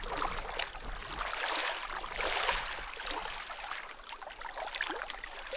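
Shallow lagoon water splashing and sloshing around a person wading waist-deep, with small drips and clicks, heaviest about two seconds in.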